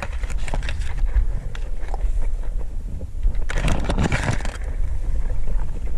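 Scraping and rustling over a steady low rumble on the microphone. The scraping is loudest from about three and a half to four and a half seconds in.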